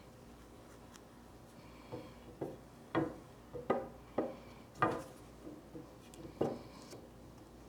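A run of about eight sharp, irregularly spaced knocks and clacks of hard objects being handled in a workshop, a few of them ringing briefly.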